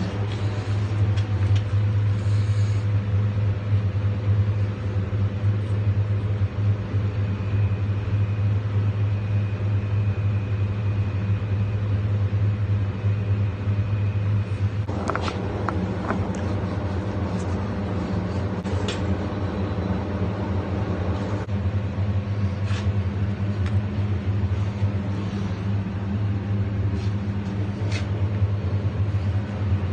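A steady, loud low mechanical hum with scattered sharp clicks and knocks; the sound thickens about halfway through.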